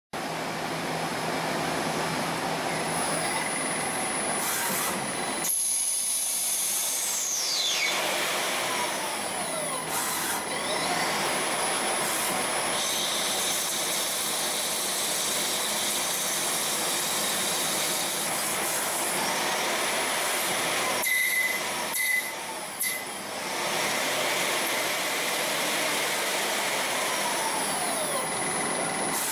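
CNC lathe machining bar stock under flood coolant: a steady hiss of coolant spray and cutting noise. A high whine falls steadily in pitch about six seconds in, and the sound dips briefly a few times past the twenty-second mark.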